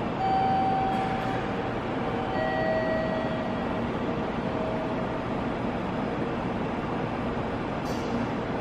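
Steady background noise of a Shinkansen station concourse, with a few held tones sounding one after another in the first half.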